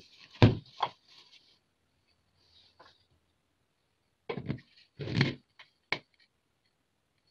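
Scattered light wooden knocks and clicks with quiet between them, as a freshly lathe-turned wooden pot and its lid are handled and the lid is set on; a cluster comes about four to five and a half seconds in, then a single sharp click.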